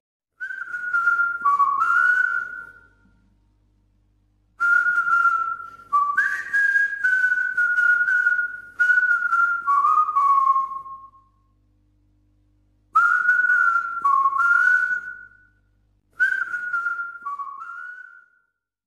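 Someone whistling a short melody in four phrases, the notes stepping up and down, with pauses of a second or two between phrases.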